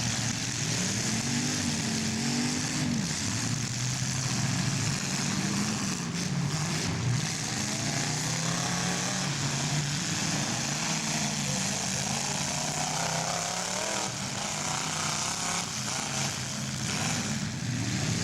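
Several full-size demolition derby cars' engines running and revving together, their pitches rising and falling over a steady hiss.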